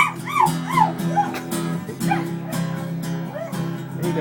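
A dog howling along to a strummed acoustic guitar, in a string of short yowls that rise and fall in pitch, three in quick succession near the start and more at intervals after.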